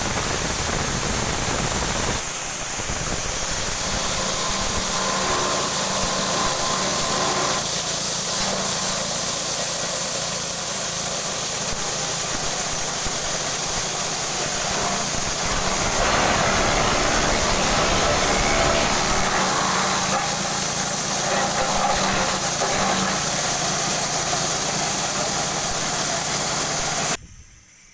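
Multi-function forage chopper machine running steadily with its engine, the sound shifting a little at times; it cuts off abruptly near the end.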